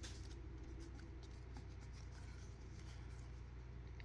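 Faint rubbing and sliding of a stack of trading cards being handled, with a few light clicks, over a steady low hum.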